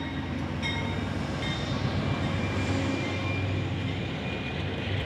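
GE P42 diesel locomotive hauling a passenger train away from a stop, its engine rumble building and growing louder about two seconds in. Two short ringing tones sound in the first two seconds.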